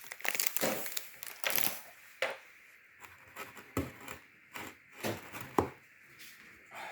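Irregular crackling, rustling and light clicks as something crinkly, such as wilted leaves or foil, is handled and pressed by hand.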